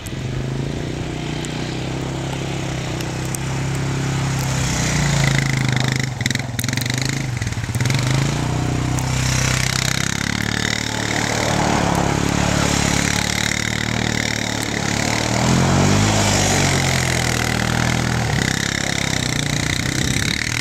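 Honda Recon 250 ATV's single-cylinder four-stroke engine revving up and down as the quad spins donuts in snow, its pitch rising and falling again and again.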